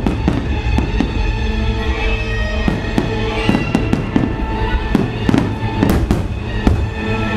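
Aerial fireworks display: many shell bursts going off in quick succession, sharp bangs with crackle, over music playing throughout.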